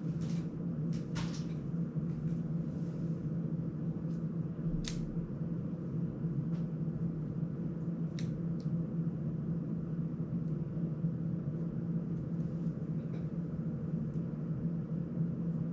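Steady low hum with a few light clicks and taps as small plastic drone frame parts are handled on a workbench, several close together in the first second or so, one around five seconds in and two around eight seconds in.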